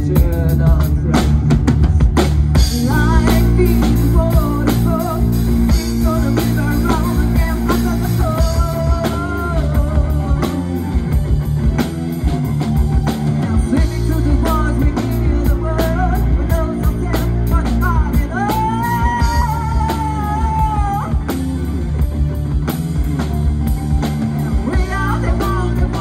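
Music: a song with a singing voice over instrumental backing and drums.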